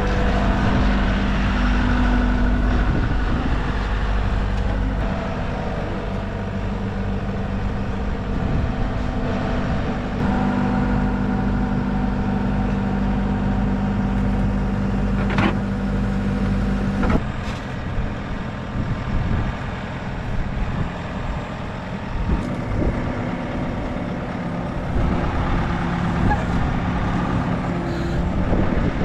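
A motor vehicle's engine running steadily, with a low hum that changes abruptly about 17 seconds in.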